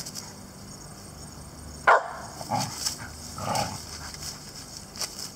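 Dog barking: one sharp, loud bark about two seconds in, then two softer barks about a second apart.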